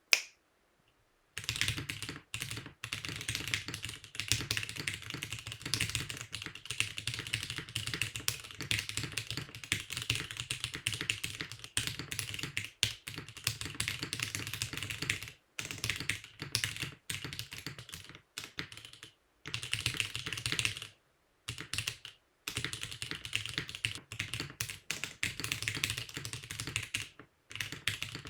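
Typing on a mechanical keyboard for a keycap sound test: fast, continuous runs of keystroke clacks, broken by a few brief pauses.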